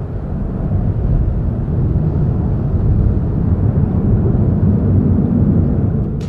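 Boeing 737-800's CFM56-7B jet engines at takeoff power, a steady low rumble.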